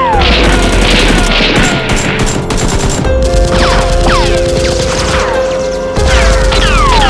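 Dramatic background music with gunfire sound effects laid over it. A flurry of shots comes in the first two seconds, then a run of quick falling-pitch zaps.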